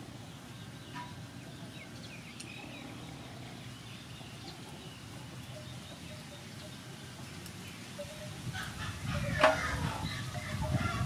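Faint outdoor background with occasional bird chirps. From about eight seconds in, louder wet handling and a sharp knock in a metal basin as a raw squid is cut and washed in its water, with fowl-like calls mixed in.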